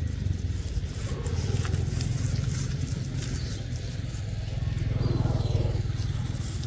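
A low, steady motor rumble, swelling and easing a couple of times, with light crackles of dry leaves.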